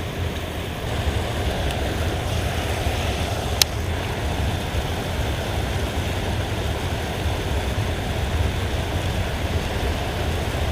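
Steady rushing of river water pouring over a concrete spillway, with a single sharp click about three and a half seconds in.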